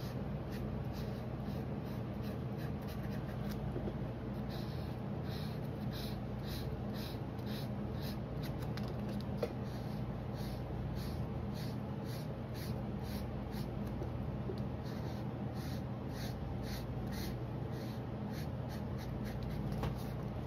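Felt-tip marker scratching back and forth on drawing paper while colouring in, in quick regular strokes, over a steady low hum.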